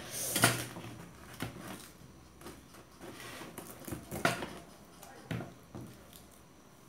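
Forks clicking and scraping on metal plates while fried momos are speared and eaten: a handful of short, sharp clicks spread about a second apart.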